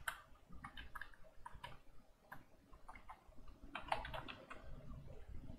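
Computer keyboard typing: faint, irregular key clicks, a little denser about four seconds in.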